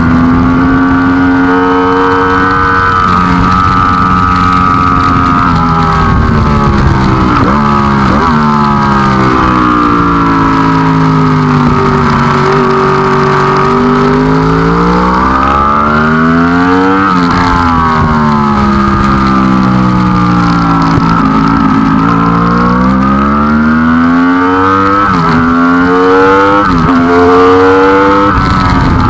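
Racing engine running hard on a race track, its pitch climbing and falling over and over with throttle and gear changes, with several sudden jumps at the shifts.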